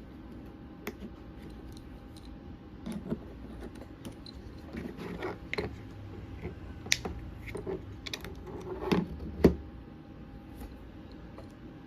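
Small hard items being handled: irregular clicks, clacks and light knocks, with the sharpest ones about two-thirds of the way in and a loud knock near the end.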